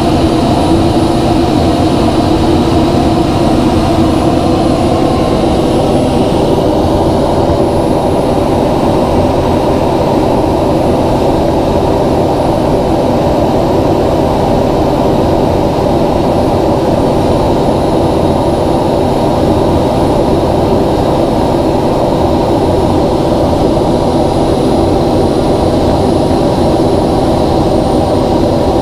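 Steady, unchanging drone of the NASA ER-2's single General Electric F118 turbofan engine and the air rushing past, heard from inside the cockpit in high-altitude cruise.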